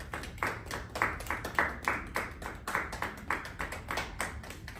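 A small group of people clapping their hands in applause: distinct, separate claps at about three to four a second.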